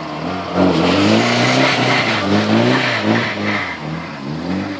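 Mitsubishi Eclipse GSX's turbocharged 2.0-litre four-cylinder engine revving hard as the car slides on grass. Its revs climb and fall several times in quick succession.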